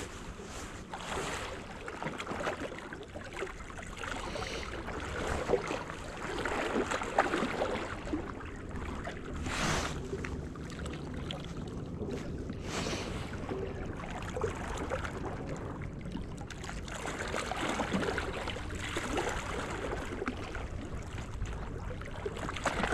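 Small sea waves lapping and sloshing at the shoreline, with a few brief rushes of wind noise on the microphone.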